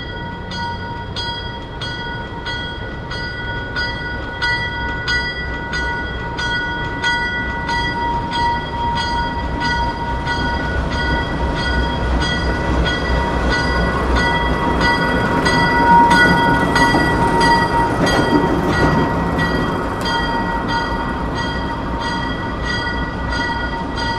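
ALCO S6 switcher's bell ringing steadily at about two strokes a second, over the rumble of the locomotive's diesel engine as it passes, loudest about two-thirds of the way through.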